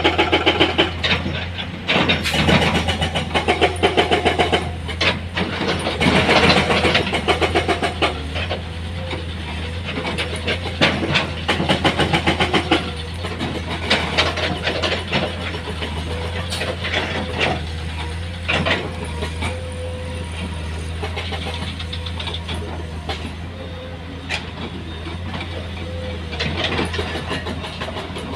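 A heavy diesel engine of earth-moving equipment running steadily, with frequent short clanks and knocks over it, loudest in the first half.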